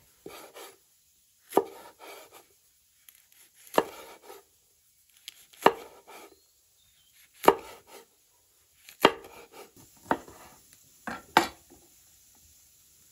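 Wide-bladed kitchen knife chopping green chili peppers on a wooden cutting board: a sharp knock of the blade on the board about every two seconds, each followed by a short crunching scrape. The strokes come closer together near the end.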